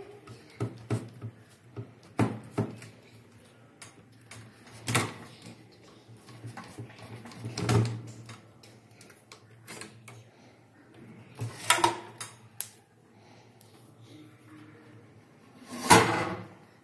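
Scattered plastic clicks, knocks and rattles of hands working inside an opened APC Back-UPS, pulling the wiring off the sealed lead-acid battery and handling the battery. The loudest clatter comes near the end, as the battery is lifted out of the case.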